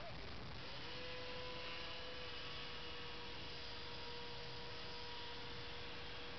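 Radio-controlled model airplane's motor in flight: a steady, even-pitched hum that comes up about a second in and holds, over a constant hiss.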